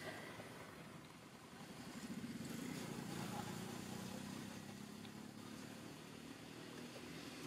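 Faint engine of a passing motor vehicle, growing louder about two seconds in and then fading away.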